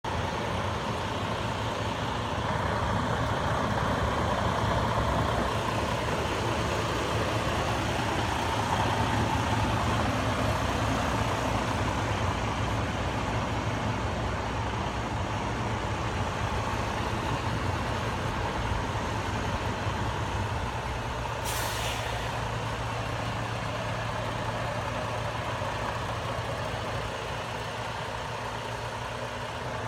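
Semi truck's diesel engine running steadily at low speed while backing up, with one short hiss of air, typical of the air brakes, about three quarters of the way through.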